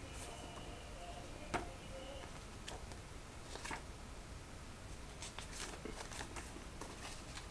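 Faint rustling and light clicks of paper leaflets and packaging being handled, with a sharper click about one and a half seconds in and a flurry of small clicks near the end.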